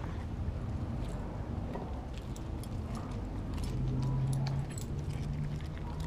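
Dog chewing raw fish, with scattered small clicks and crunches and the jingle of its collar tag. A low steady hum comes in about three and a half seconds in and lasts about two seconds.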